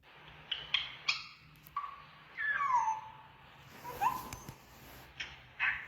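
African grey parrot calling: a few short, scratchy squawks, then a falling whistle-like note, a short rising note about four seconds in, and one more brief call near the end.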